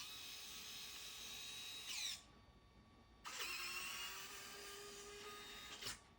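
Roborock Saros Z70 robot vacuum's small electric motor whirring with a high whine in two short runs, the first about two seconds and the second about three, each stopping abruptly.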